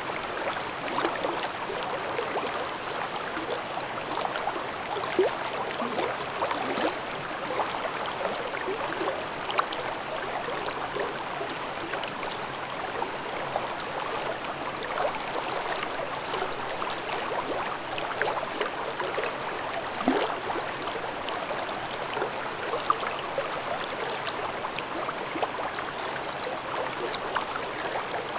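Mountain stream babbling over rocks: steady rushing water with constant small gurgles and splashes, now and then a slightly louder splash.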